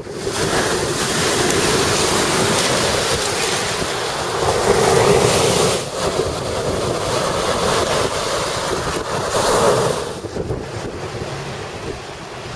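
Lake Superior waves breaking and washing up a pebble beach, with strong wind buffeting the microphone. The surf swells louder a few times, then drops to a lower rush of wind and choppy water about ten seconds in.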